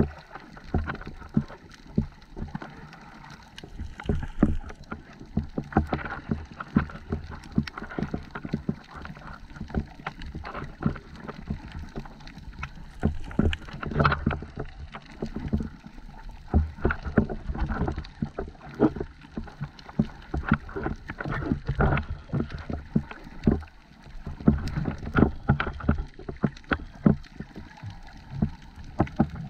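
Muffled underwater sound picked up by a camera in a waterproof housing: a steady low rush of moving water with irregular knocks and crackles, several a second at times.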